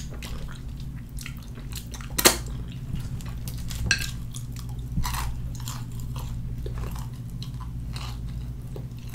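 Close-up eating sounds of fried chicken eaten by hand: chewing with scattered crunches and wet mouth clicks, the sharpest about two seconds in, over a steady low hum.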